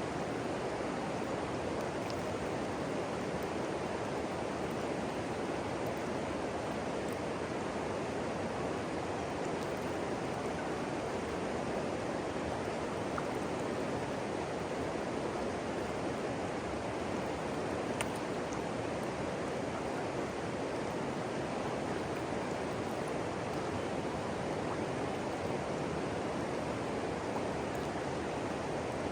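River water rushing steadily over a rocky shoal: an even, unbroken rush.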